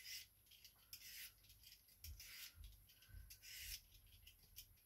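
Vegetable peeler scraping along a cucumber, faint strokes about once a second, with a few soft knocks of handling.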